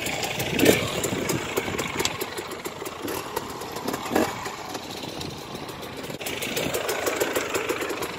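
Suzuki Jimny engine running at low speed as the vehicle crawls over rough off-road ground, with a sharp knock about a second in and another about four seconds in.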